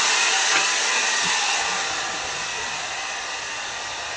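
Hair dryer blowing steadily, a constant airy rush. It grows fainter about two seconds in and stays at the lower level.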